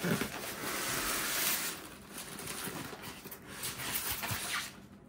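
Rustling and crinkling of packing material as an item is pulled out of a box, loudest in the first two seconds, then softer crackles and a few light knocks.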